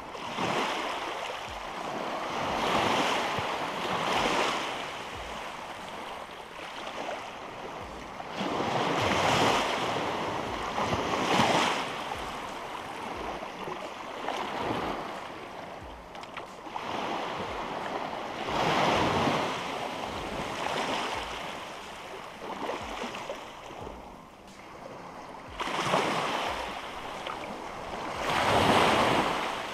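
Small surf breaking and washing up the beach, a rush of water that swells and fades every few seconds.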